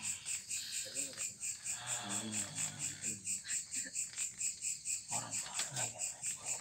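Crickets chirping in a steady, even pulse of about three to four chirps a second.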